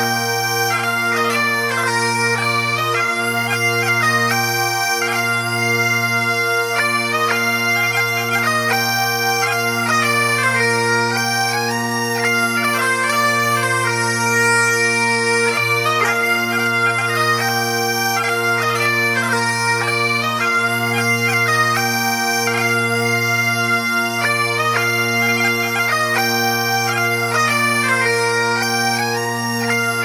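Bagpipe music: steady drones held under a chanter melody with quick grace-note flourishes.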